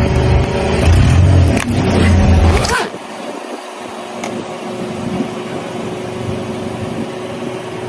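A car running close by with a loud low rumble, which drops away suddenly after a sharp crack about three seconds in, leaving a quieter steady engine hum.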